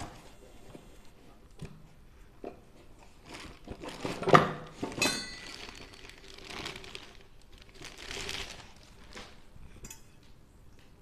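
Plastic wrapping crinkling and rustling as stainless steel puttu-pot parts are handled out of a cardboard box. There is a sharp knock about four seconds in, then a brief metallic clink.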